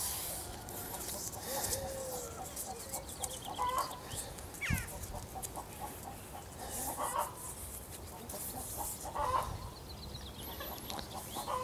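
Chickens clucking faintly now and then, with a few brief high bird chirps near the end.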